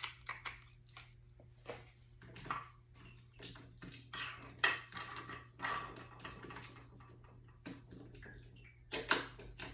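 Handling of a plastic TV remote and its AAA batteries: scattered small plastic clicks and clatters as the battery cover and batteries are taken out, with a couple of louder clicks.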